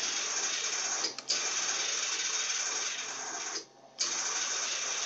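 Flux-core MIG welding arc at minimum wire feed and low power, hissing and crackling steadily and cutting out twice briefly, about a second in and again near the end, over a low steady hum. The wire is feeding poorly, which the welder puts down to the wire welding itself to the contact tip.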